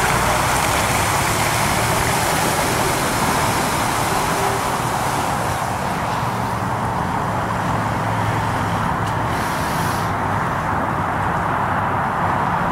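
Jeep Wrangler TJ engine running steadily as the Jeep drives away through muddy water, under a loud, even rushing noise. The highest hiss fades about ten seconds in.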